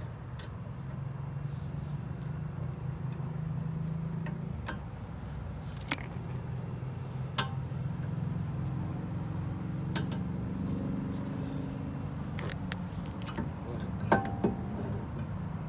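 Scattered sharp metallic clinks of brake parts and tools being handled at a car's rear brake caliper, about eight over the span, the loudest a double clink near the end, over a steady low vehicle hum.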